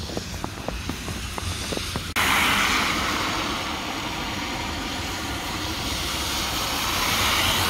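Boots crunching through fresh snow in a steady walking rhythm. About two seconds in, this gives way abruptly to a louder, steady rushing hiss that cuts off suddenly at the end.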